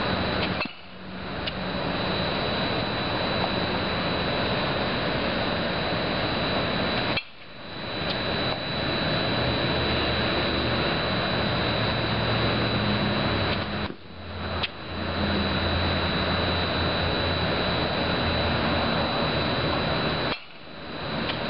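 A bat hitting pitched balls in a batting cage, four hits about six to seven seconds apart, each followed by a sudden dip in level that recovers over a second or so. Under them runs a steady noisy roar with a thin high whine.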